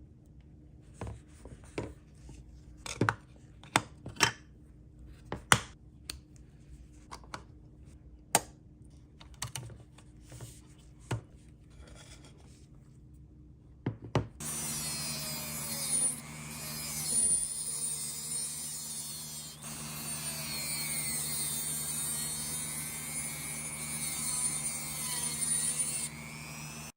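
Hand work on a small diecast model. For the first half there are scattered sharp clicks and taps of small parts being handled. About halfway it switches suddenly to a steady rubbing, grinding noise of tool work on the model.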